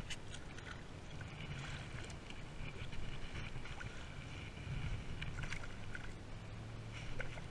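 A spinning reel cranked in short bursts, whirring as line is wound in on a hooked smallmouth bass. Wind rumbles on the chest-mounted microphone underneath.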